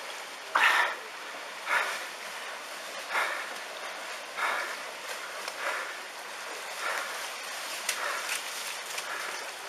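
Tsunami seawater rushing through a street as a steady hiss. Short, sharper sounds repeat about once a second over it.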